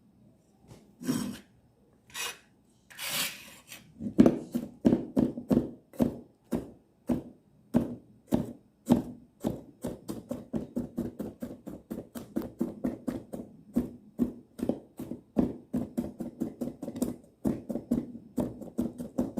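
Kitchen knife chopping garlic on a cutting board: after a few scraping sounds in the first seconds, a steady run of quick knife strokes, about three a second.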